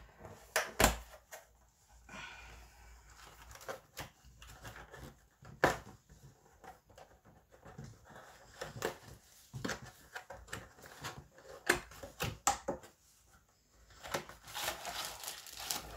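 A cardboard puzzle box being worked open by hand: scattered knocks and taps on the cardboard, scraping as the tight lid is pried loose, and a longer stretch of rustling near the end.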